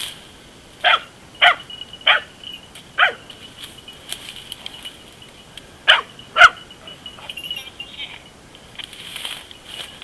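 Dachshunds baying at a wild boar they are holding at bay, in single barks: four spaced barks in the first three seconds, then two more about six seconds in.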